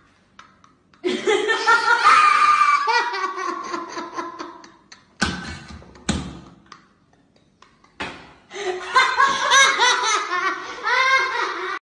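People laughing hard and high-pitched in two long bouts, with two sharp thumps between them.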